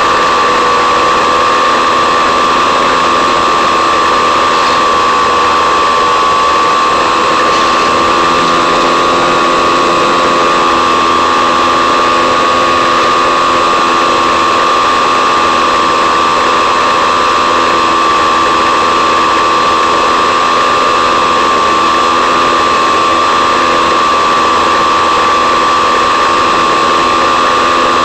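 Electric motor and propeller of an FPV model plane running steadily at low power, drawing about 2.5 A: a constant high whine that wavers slightly in pitch, over a steady hiss.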